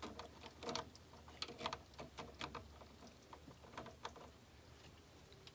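Socket ratchet clicking in short, irregular runs of ticks while an 8 mm vacuum-pump bolt is backed out, busier in the first half and sparser after.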